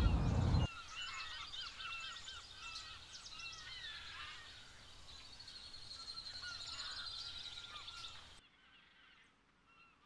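A flock of birds calling: many short, overlapping calls at a low level, which cut off sharply about eight seconds in.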